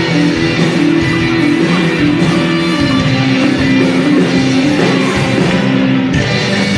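Live band playing an instrumental passage of a slow ballad, with guitar among the instruments and a melody of held notes.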